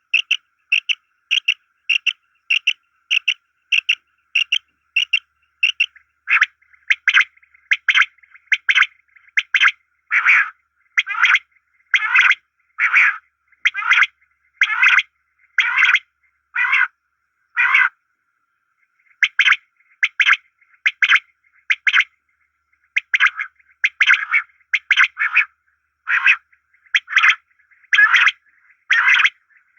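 Birds calling over and over in short, evenly spaced notes. The calls come about twice a second at first. After about six seconds they slow to longer notes at a little over one a second, with a short pause a little past halfway.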